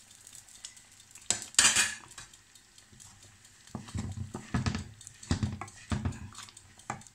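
A steel plate clatters twice against a stainless steel kadai about one and a half seconds in. Then, from about the middle on, a wooden spatula stirs paneer cubes through thick tomato gravy in soft strokes, about two a second.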